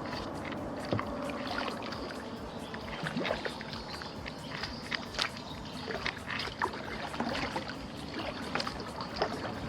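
Kayak paddling in a fast creek current: irregular paddle splashes and knocks over steady running water.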